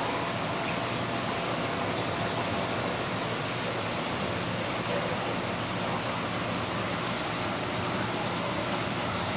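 Steady rushing of aquarium aeration and water circulation, air stone bubbles and flowing water, over a low steady hum from the tank equipment.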